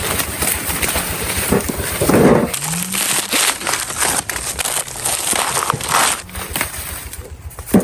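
Dense crackling and rustling of dry material, with many small irregular snaps.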